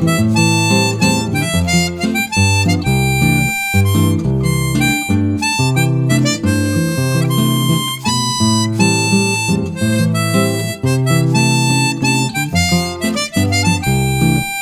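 Harmonica playing a quick, continuous melody over acoustic guitar accompaniment.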